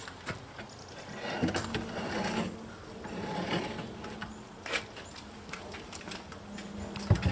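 Metal wire rack loaded with jerky strips being slid into a homemade wooden smoker, scraping and rattling along the wooden slats in two stretches, with scattered clicks and a knock near the end as it is set in place.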